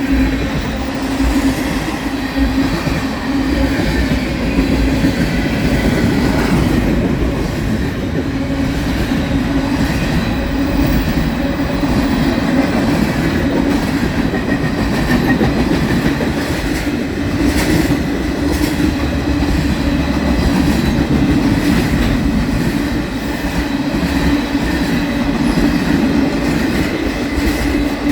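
Freight train rolling steadily past at close range, its wheels clicking over the rail joints in an even rhythm.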